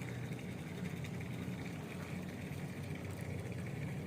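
Steady low engine hum, running evenly without change.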